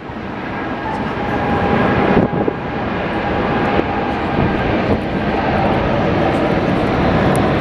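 Jet airliner engines running loud and close, a dense roar that builds over the first couple of seconds and then holds steady, with a faint steady whine through it.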